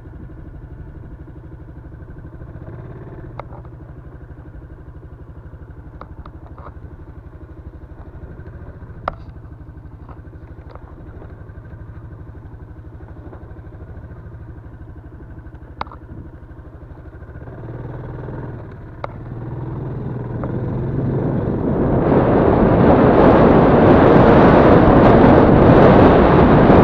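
Yamaha Crypton-X's single-cylinder four-stroke engine running steadily at low speed, with occasional sharp knocks and clatter. From about eighteen seconds in, the bike speeds up and a loud rush of wind on the microphone builds until it covers the engine.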